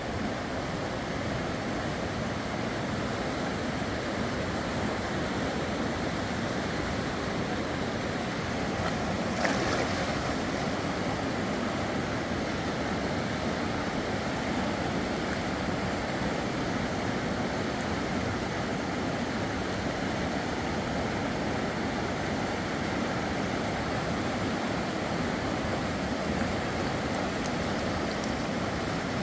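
Rushing river water, a steady rush, with one brief sharp knock about nine and a half seconds in.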